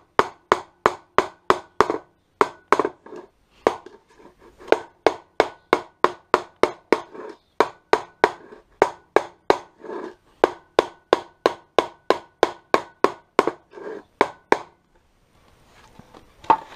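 Rubber mallet knocking on a wooden board laid over a linear drain channel, a steady run of blows about two to three a second, tapping the channel down into its sand bed so it sits lower, level with the paving. The blows stop near the end.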